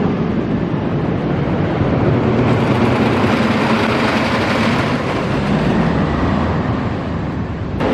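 Wooden roller coaster train running on its track, a steady loud rattling rumble mixed with rushing air, cut off abruptly near the end.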